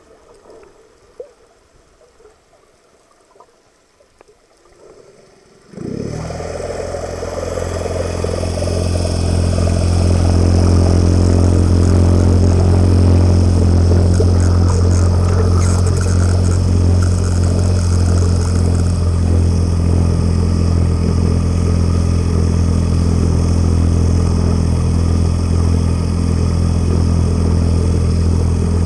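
A boat's engine and saildrive propeller, heard underwater: a low, steady hum starts suddenly about six seconds in, builds over the next few seconds, then runs evenly under the hiss and churn of the propeller wash.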